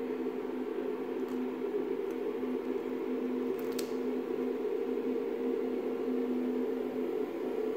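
CNC 3040 router running idle with no cutting, a steady electric hum with a constant low tone.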